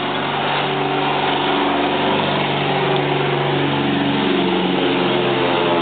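An engine running steadily, its pitch shifting slightly about two-thirds of the way through.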